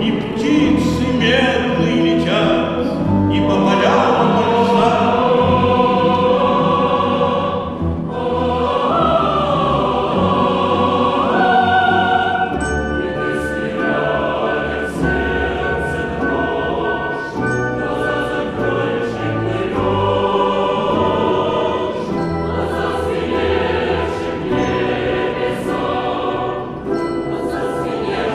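A mixed choir singing with a Russian folk-instrument orchestra of domras, balalaikas and bayans, a loud, full choral-orchestral passage of the oratorio, with sharp struck accents scattered through it, more of them in the second half.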